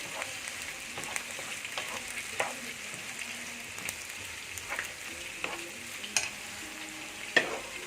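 Chopped vegetables and capsicums sizzling in butter in a pan over high heat while they are stirred, the stirring utensil scraping and knocking against the pan now and then, with the sharpest knocks about six and seven and a half seconds in.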